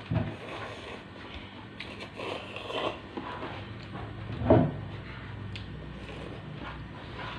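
Close-up eating sounds: chewing and slurping instant noodles, with small scrapes of a fork in a paper cup. One louder mouth sound comes about four and a half seconds in.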